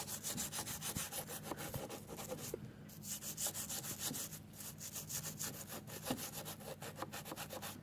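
Quick, even back-and-forth scrubbing strokes, several a second, as grime and Goop hand cleaner are worked out of the slide-plate tracks on the bed of a 1914 Singer 128 sewing machine.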